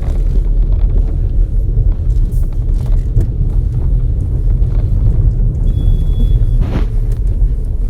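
Volkswagen Taigun cabin while driving: steady road and engine rumble, with faint intermittent squeaks and creaks from the door rubber beading rubbing against the metal door body.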